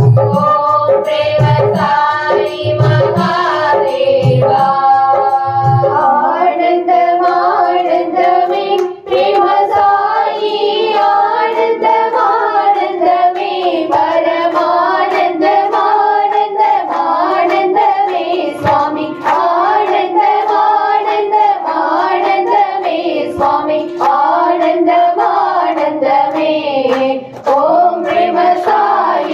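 Voices singing a devotional aarti hymn, with hand claps keeping time. A low drum beats about twice a second until about six seconds in, then stops while the singing goes on.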